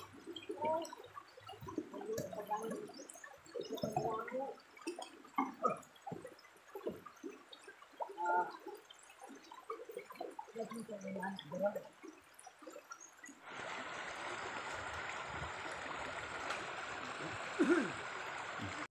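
Water sloshing and gurgling in a wooden gold pan as it is swirled and dipped in a shallow river, washing off the gravel down to the black sand. About thirteen seconds in this gives way to a steady, even hiss.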